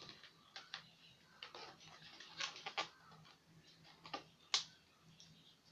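Latex modelling balloons squeaking and rubbing under the hands as a balloon dog is twisted and shaped: a run of short, irregular squeaks and rubs, the sharpest about four and a half seconds in.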